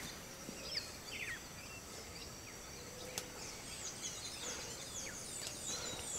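Forest ambience with birds calling: a run of short, high chirps that fall in pitch, thicker in the second half. A single sharp click comes about three seconds in.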